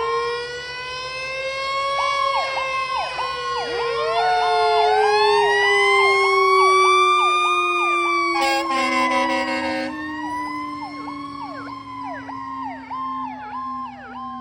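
Fire engine's mechanical Q siren winding up and slowly down in pitch, under a fast repeating electronic siren yelp. An air horn blasts for about a second and a half, a little past the middle.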